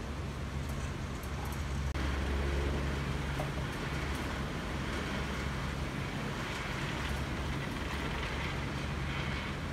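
Tougnète gondola lift running, a steady low mechanical hum of the haul cable and lift machinery, with the cable passing over the tower's sheave wheels.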